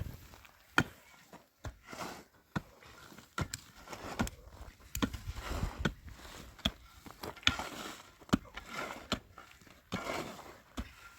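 Irregular sharp knocks and cracks, about one or two a second, with scraping and scuffing noise between them, as of wood being struck.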